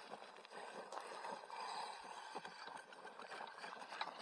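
DF-4 BL RC truck driving over loose gravel: a steady crunching rustle with many small stone clicks.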